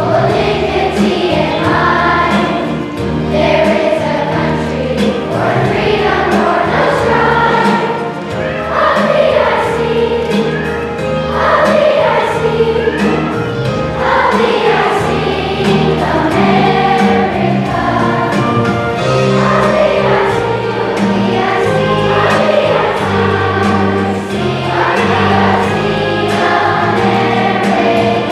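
A large choir of fourth-grade children singing, with steady low accompaniment notes underneath.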